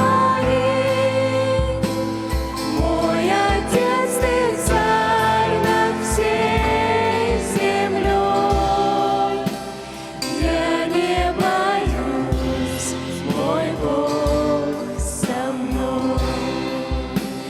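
Church youth group singing a Christian worship song as a choir, over instrumental backing with a steady low bass beat.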